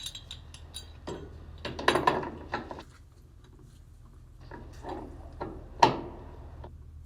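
Clicks and knocks of the new slurry-tanker valve handle's parts being handled and tried together, with louder knocks about two seconds in and near six seconds.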